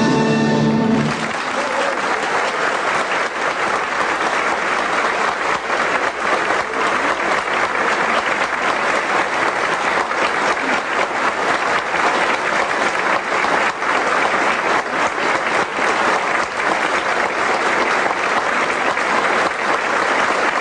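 An orchestra's final held chord cuts off about a second in, and a concert hall audience breaks into steady applause that carries on without letup.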